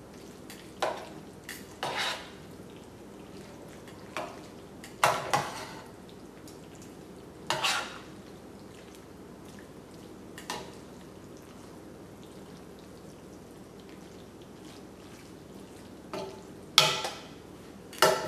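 Metal tongs clanking and scraping against a stainless steel sauté pan as spaghetti is tossed in tomato sauce. Scattered single clanks with a long lull in the middle, the loudest ones near the end.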